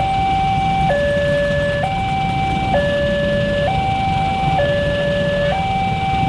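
Railway level-crossing warning siren sounding a steady two-tone alternation, high then low, each tone held just under a second, over a low traffic rumble.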